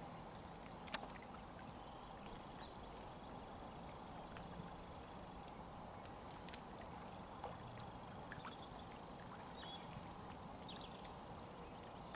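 Faint lakeside ambience: gentle lapping of lake water, with a few faint, distant high bird chirps and a few small clicks.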